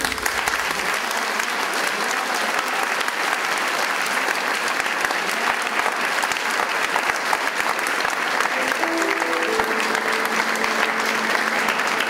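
Audience applauding steadily after the music stops. A few held notes of new music come in quietly under the clapping near the end.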